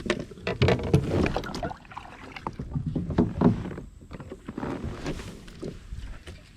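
Kayak being paddled or moved: paddle splashes and sharp knocks against the hull, coming in three loud clusters.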